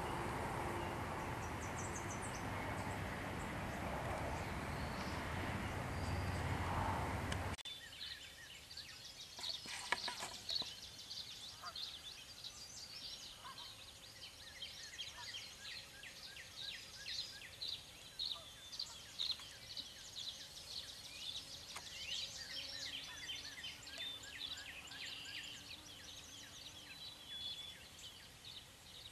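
A steady rushing noise that cuts off abruptly several seconds in. It is followed by many small birds chirping and calling in the woods, with a louder burst of calling about ten seconds in.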